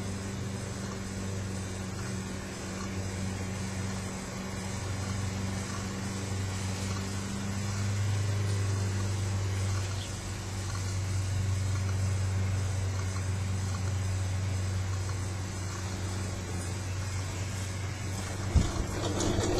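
Steady low mechanical hum, with a single knock near the end.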